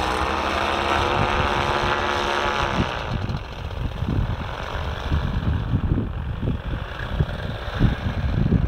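Paramotor backpack engine and propeller running at high power. About three seconds in, the pitch drops and the sound fades as the skier it pulls moves away. After that, gusts of wind buffet the microphone.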